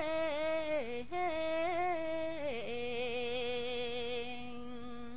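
A single voice chanting a Khmer poem in lullaby (bampe) style, drawing out long held notes with small ornamental wavers. The pitch steps down twice, and the last low note is held and softens toward the end.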